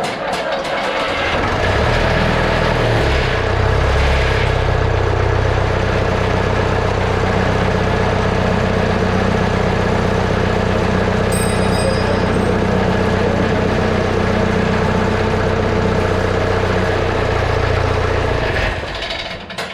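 Old diesel farm tractor engine starting cold with an inline intake air heater, catching and picking up over the first couple of seconds, then running steadily until it is shut off near the end.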